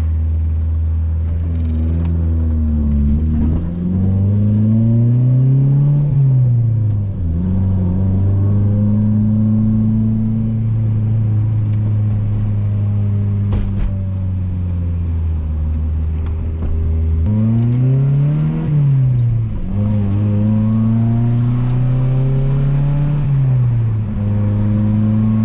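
1990s Honda engine heard from inside the car while driving. The revs climb and drop sharply at each gear change a few times, with a long steady cruise in the middle.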